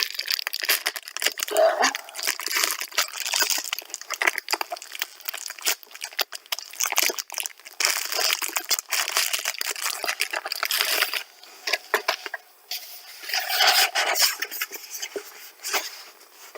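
Paper rustling and crinkling in irregular bursts as a poster is handled.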